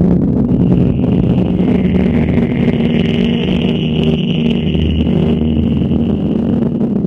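Dense, low electronic drone from a laptop performance: steady low tones over a rumble, joined about half a second in by a high whine.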